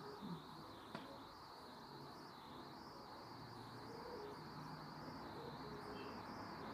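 Faint, steady room tone with a high hiss. There are two soft clicks in the first second, and faint low hum-like tones come and go in the background.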